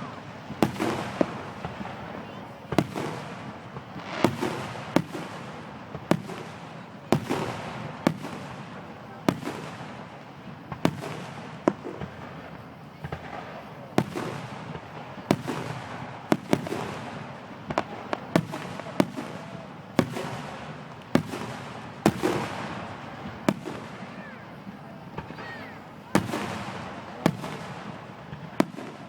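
Aerial fireworks display: a steady run of sharp shell bursts, about one to two bangs a second, each followed by a rolling rumble and crackle, with a crowd murmuring underneath.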